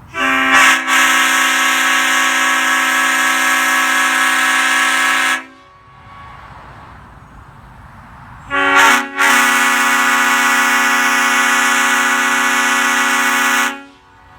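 Two long blasts from a Leslie five-chime air horn with a bronze tabby power chamber, each about five seconds of several steady tones sounding together as one chord. Each blast catches with a brief stutter just after it starts, then holds steady and cuts off.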